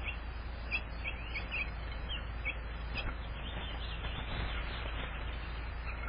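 House finches chirping: short, high chirps and small rising-and-falling notes scattered through, over a steady low hum.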